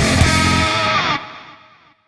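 Rock music with distorted electric guitar and drums, ending about a second in as the last chord rings out and fades.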